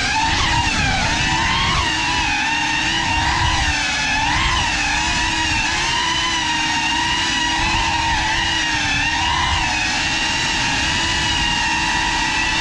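GEPRC FPV quadcopter's brushless motors and propellers whining steadily, the pitch bending up and down together as the throttle changes.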